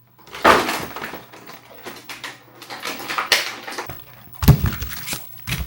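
A product box being opened by hand: its packaging rustles, scrapes and tears, with two sharp thumps near the end.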